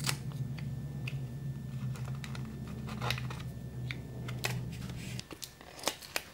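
Irregular light clicks and taps of a paintbrush handle and fingers on a 3D-printed PLA plastic mold plate as tape is pressed down and the plate is handled. Under them a steady low hum cuts off about five seconds in.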